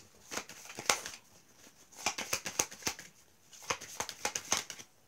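A deck of cards being shuffled by hand: three short bursts of quick flicking clicks as the cards slide and slap against each other.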